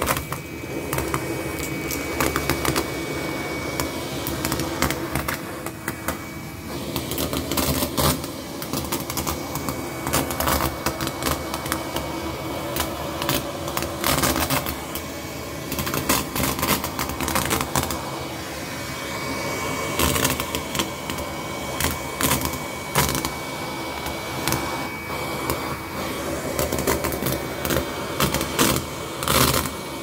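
Henry cordless vacuum cleaner running steadily while its crevice tool sucks up metallic foil confetti from a shaggy rug, the pieces rattling up the tool in quick, irregular runs of clicks.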